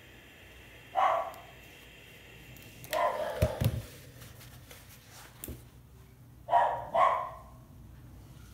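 A dog barking in short bouts: one bark about a second in, more around three seconds in, and two in quick succession near the end.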